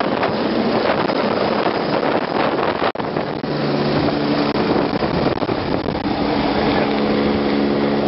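Helicopter flying close overhead, its rotor and engine noise mixed with wind buffeting the microphone. After a short break about three seconds in, a steady hum of several tones sits under the rotor noise.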